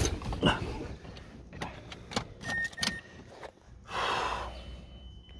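Car keys jangling and clicking as the key is turned in a Mazda 3's ignition, switching it to on with the engine off. There are two short beeps a couple of seconds in, then a brief rushing noise.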